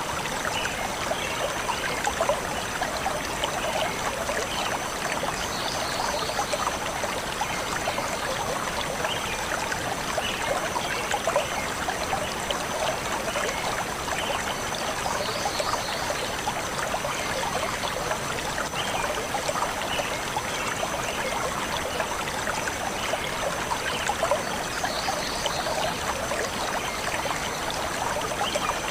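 A shallow stream flowing steadily, a constant trickling, splashing rush of water, with faint short bird chirps now and then.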